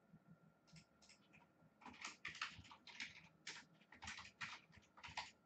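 Typing on a computer keyboard: a few scattered key clicks, then a quick run of faint clicks starting about two seconds in and stopping near the end.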